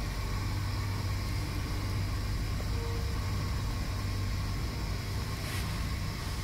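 Steady low rumble with a faint even hiss, no speech: background noise, with a faint short tone about three seconds in.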